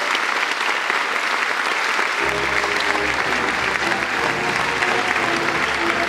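Theatre audience applauding in a long standing ovation, a dense steady clatter of clapping. About two seconds in, music with a bass line starts playing under the applause.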